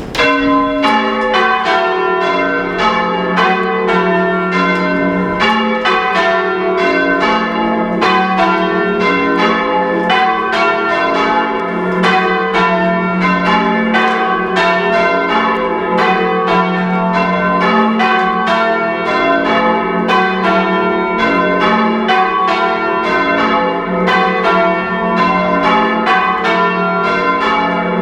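Four church bells of a heavy ring of five being rung by rope in a steady repeating sequence, heard very loud from inside the ringing chamber, each stroke ringing on into the next. The treble is silent because its rope has snapped.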